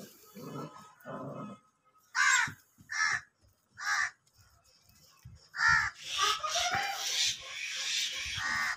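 A crow cawing, four short harsh calls about a second apart. Two lower pitched sounds come near the start, and a stretch of rough noise follows the calls near the end.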